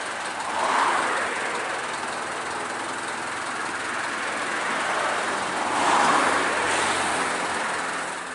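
Steady road traffic noise as vehicles pass on the road, swelling as one goes by about a second in and another around six seconds.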